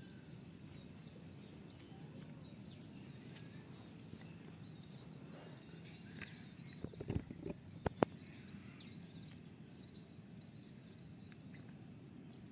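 Faint outdoor ambience with scattered small bird chirps, and a short cluster of sharp clicks and taps about seven to eight seconds in.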